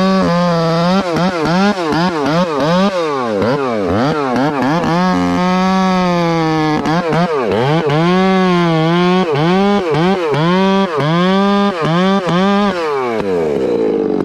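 Makita gas chainsaw cutting through a conifer log at full throttle. The engine pitch dips and recovers over and over as the chain loads up in the wood, then falls away near the end as the cut finishes.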